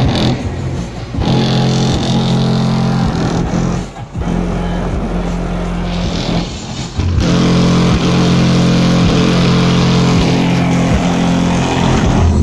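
Loud music with heavy held bass notes played through a car audio system with two large trunk-mounted subwoofers. The bass drops out briefly about one, four and six and a half seconds in, changing note after each break.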